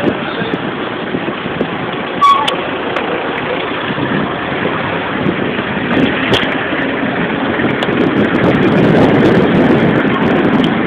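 Steady rushing noise of wind and street traffic on a phone microphone moving along a road, with a couple of sharp clicks about two and six seconds in.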